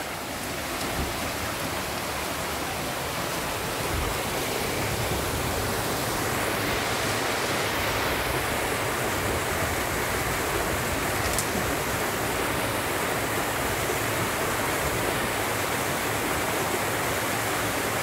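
Spring-fed mountain stream rushing over boulders and a small waterfall: a steady rush of water that swells a little over the first few seconds and then holds.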